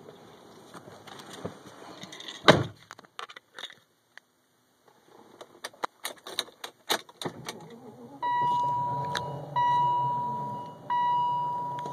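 Car door shut with a thud about two and a half seconds in, then keys clicking and jingling as the key goes into the ignition. Then the 2001 BMW X5's seat-belt warning chime sounds three times, about a second and a half apart, each tone fading away.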